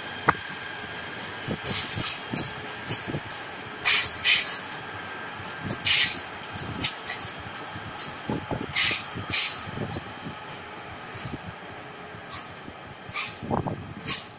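KTM Komuter electric train running past and moving away along the tracks: a steady rumble of wheels on rail, broken by irregular low knocks and short, sharp high clicks as the wheels cross rail joints and points.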